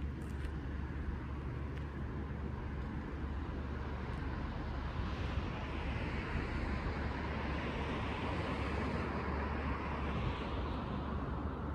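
Steady low traffic rumble, with one vehicle passing: its noise swells from about five seconds in and fades near the end.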